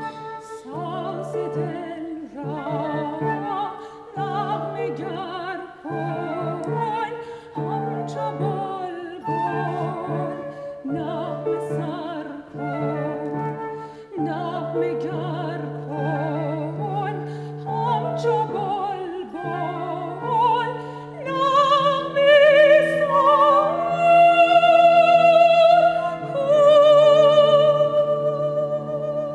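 Soprano singing in operatic style with strong vibrato over instrumental accompaniment, an old Iranian song in an operatic arrangement. About two-thirds of the way through she climbs to louder, high held notes.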